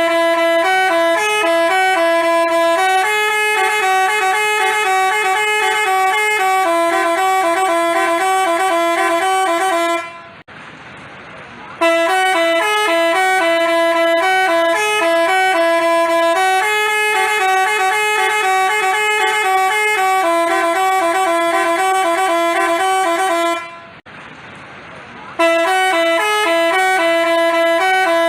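Basuri telolet bus horn playing a multi-tone melody, the notes stepping up and down in a repeating tune. It plays in long phrases of about ten seconds, with two short breaks.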